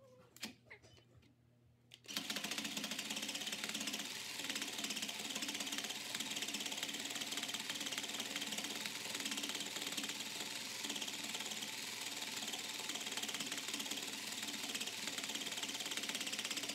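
Sew Cool toy felting machine running: its felting needles punch rapidly up and down through the felt with a steady, fast mechanical clatter. It starts about two seconds in, after a few faint clicks, and runs without a break.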